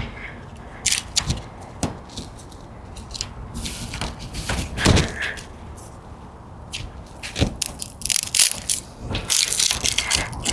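Small side twigs being snapped off a tree branch by hand: a run of irregular sharp cracks and snaps of breaking wood.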